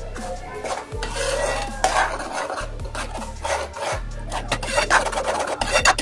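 Metal spoon stirring thick spinach purée in a metal kadhai, scraping repeatedly and unevenly against the pan's bottom and sides.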